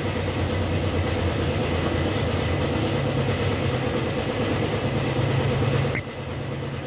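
Steady low mechanical rumble from a running machine, with a short click about six seconds in, after which the rumble drops somewhat quieter.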